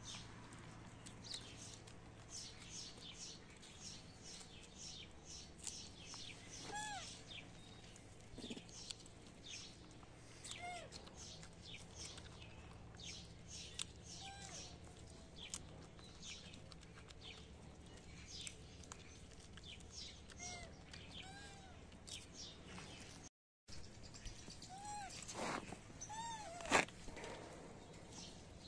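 Small birds chirping busily, with a short rising-and-falling animal call now and then and several close together near the end. One sharp knock near the end is the loudest sound.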